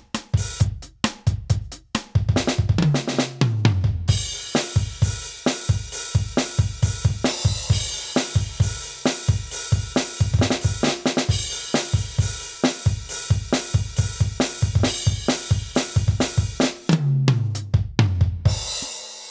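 Aroma TDX-25 electronic drum kit played with sticks on its 'Cool Jazz' kit sound: a steady groove of kick, snare and cymbals. A tom fill runs down in pitch about three seconds in and again near the end, and a cymbal rings out at the close.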